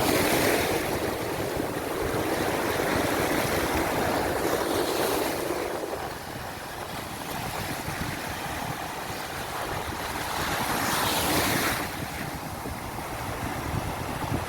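Sea waves breaking and washing ashore. The surf swells louder three times: at the start, about five seconds in, and again about eleven seconds in.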